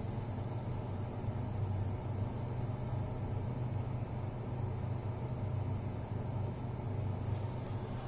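SANG PD12-DAR compressor dehumidifier running: a steady low hum with an even rush of air over it.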